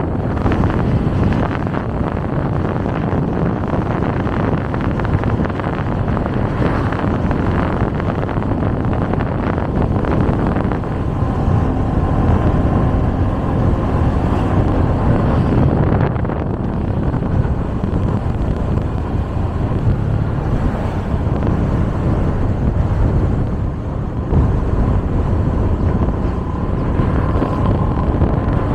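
Street traffic noise with wind buffeting the microphone: a continuous heavy rumble with no pauses.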